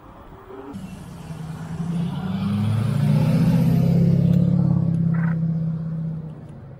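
A motor vehicle's engine passing close by, swelling over about two seconds to a peak in the middle and then fading away.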